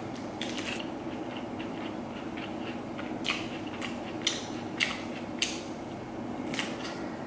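Crisp crunching of a fresh lettuce leaf wrap being bitten and chewed close to the microphone: a few sharp crunches near the start, then several more spaced out through the middle and latter part, over a faint steady background hum.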